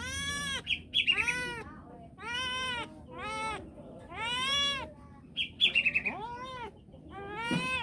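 Domestic cat meowing over and over, about seven separate meows, each rising and then falling in pitch, with two short high chirps among them. The owner takes it as the cat asking to play.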